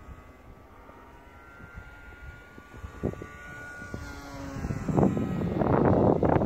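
Electric motor and propeller of a 3D-printed RC Me-109 model plane whining as it flies past, its pitch dropping as it goes by. From about five seconds in, loud wind buffeting on the microphone covers it.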